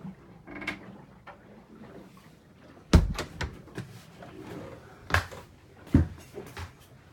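A few sharp knocks and thuds, the loudest about three seconds in and two more near the end, with lighter clicks and rustling between: bumps and handling noise while moving through a boat's cabin.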